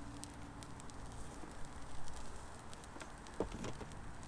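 Spatula stirring and scraping food in a cooking pot on a small camp stove, with scattered light clicks and a couple of short scrapes about three and a half seconds in.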